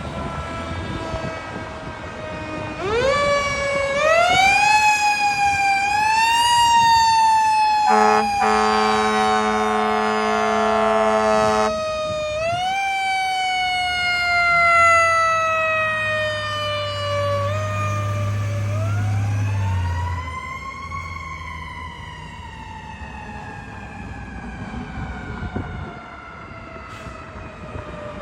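Fire apparatus siren wailing, several times winding up quickly and falling slowly in pitch, with one long steady air horn blast of about four seconds in the first half.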